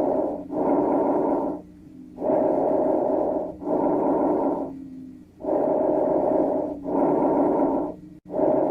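Normal breath sounds heard through a stethoscope: a hollow rushing noise for each breath in and each breath out, about three full breaths. Each phase lasts about a second, with a brief break between breathing in and breathing out and a slightly longer pause before the next breath.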